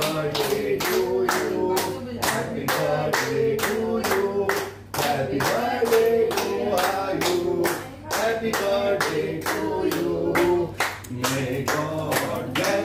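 A group of people clapping in steady rhythm, about four claps a second, while singing a song together.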